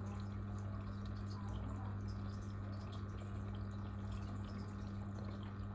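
Aquarium water trickling and dripping, with small scattered ticks over a steady low electrical hum from the tank's running equipment.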